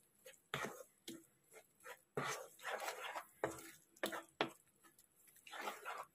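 A spoon stirring thick vermicelli payasam in a nonstick kadai to mix in the sugar, heard as a series of short, irregular scraping strokes.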